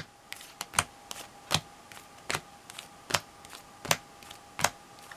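Japanese Pokémon trading cards being flicked one at a time from a hand-held stack, each card giving a sharp snap about every three-quarters of a second, with softer clicks between. A faint steady hum runs underneath.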